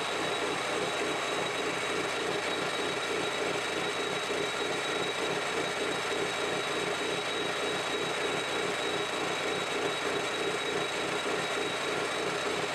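Metal lathe running steadily with a stainless steel bar spinning in its chuck: an even mechanical drone with a fast, regular pulsing and a thin, steady high whine.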